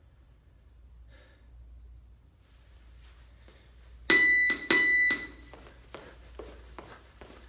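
Gym interval timer sounding two loud electronic beeps, each about half a second, about four seconds in: the signal to start the next work interval. Light footfalls of high knees follow at two to three steps a second.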